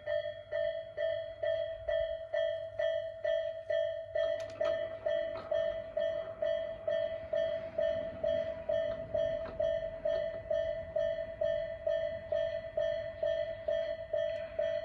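Japanese electronic level-crossing bell of the Isesaki type, ringing steadily at about two strikes a second. From about four seconds in a train passes over the crossing, adding a rumble and wheel clicks beneath the bell.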